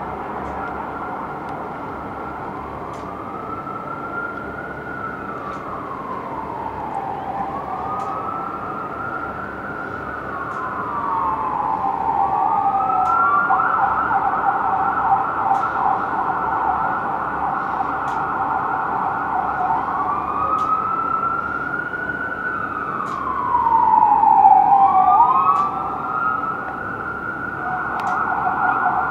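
Fire engine's electronic siren on a slow wail, rising and falling every few seconds. It switches to a rapid yelp about halfway through, returns to the wail, then yelps again near the end. It grows louder as the truck draws near, loudest a few seconds before the end.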